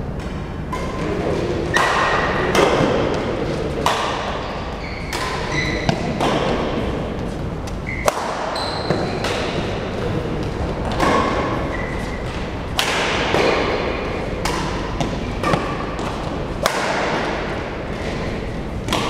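Badminton rackets striking a shuttlecock in a doubles rally, sharp hits about every one to two seconds with a short echo. Court shoes squeak on the floor between the hits.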